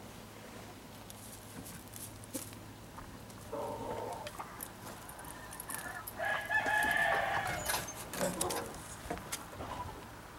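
Two animal calls with held pitch: a shorter one about three and a half seconds in, then a louder, longer one about six seconds in, over scattered small clicks and rustles.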